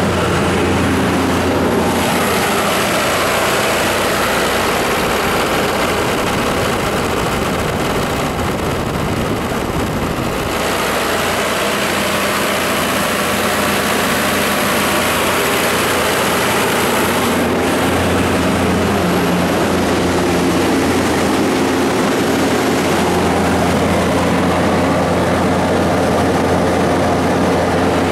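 John Deere 4045HFG92 four-cylinder diesel of a Multiquip DCA-70SSJU4i generator set running steadily at its governed 1800 rpm, loaded by a load bank during a load test.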